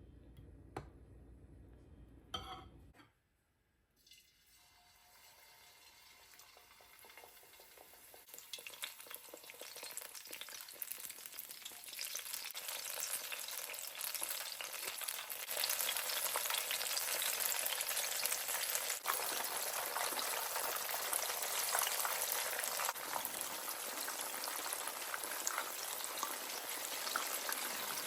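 Battered banana fritters frying in hot oil: a few clicks at first, then a sizzle that starts faint and builds over about ten seconds into a steady, loud crackle.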